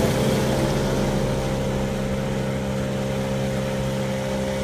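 Small tiller-steered outboard motor on a jon boat running at a steady speed.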